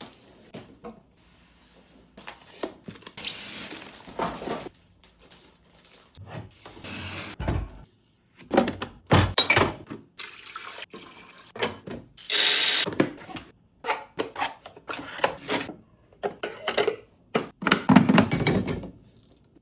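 Cardboard box and plastic packaging being opened and handled, with irregular rustling, scraping and knocks.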